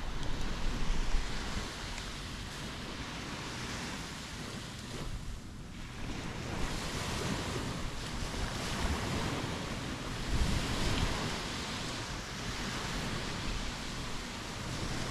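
Waves breaking and washing on a sandy beach, swelling and easing, loudest about ten seconds in. Wind buffets the microphone with a low rumble.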